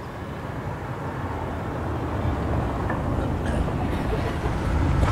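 A road vehicle approaching: a low rumble that grows steadily louder.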